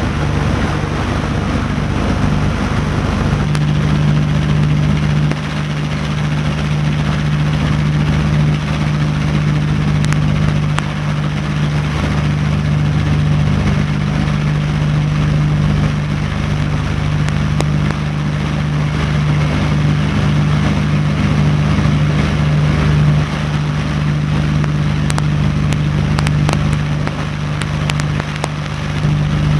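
Radial engines and propellers of a B-25 Mitchell bomber droning steadily in flight, heard from inside the cabin as a constant deep hum. The level dips briefly near the end.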